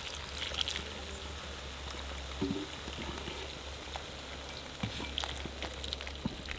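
Boiling water poured from a kettle down the side of a kazan onto frying beef and carrots, sizzling and crackling steadily as it meets the hot fat.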